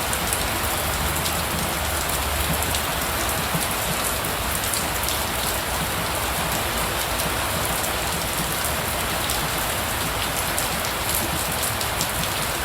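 Steady rainfall, with many fine drop ticks pattering on a surface.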